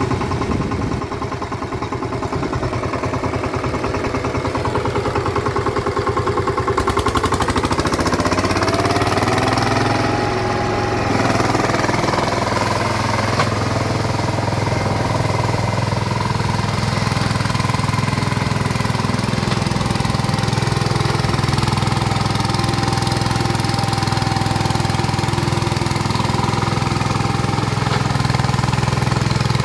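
Power tiller engine running steadily. About eight seconds in, it speeds up with a rising whine, then keeps running at the higher speed.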